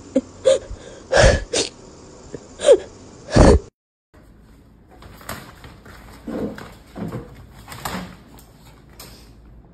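Short gasping, whimpering sobs from a crying woman, several in a row. After a cut about four seconds in, soft irregular knocks and rustling follow.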